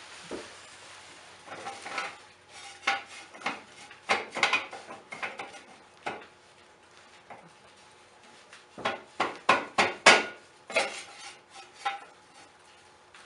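Metal clanking and clatter of steel jack stands being set under a car and adjusted, with scattered knocks and a quick run of louder clanks about nine seconds in.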